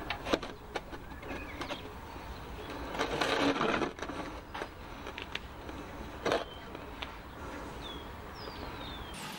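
Scattered knocks and clicks of a gloved hand working at the engine sump and on a plastic oil drain pan. About three seconds in comes a louder scraping rush lasting about a second as the pan is handled, and a sharp knock follows a few seconds later.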